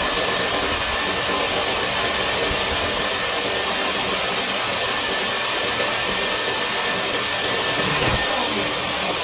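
Motor-driven fan running steadily, a loud rush of air through a clogged dryer vent duct being cleaned out, with a faint steady whine over the noise.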